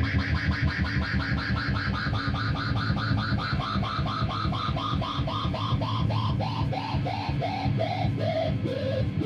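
Electric guitar noise through effects pedals: a pulsing low drone under a repeating blip that slides steadily down in pitch and slows over several seconds.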